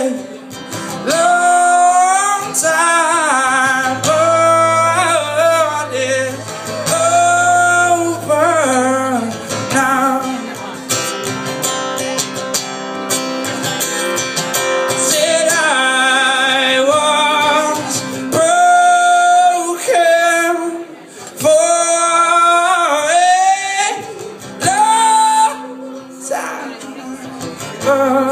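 Live music: a man singing long, wavering held notes over a strummed acoustic guitar.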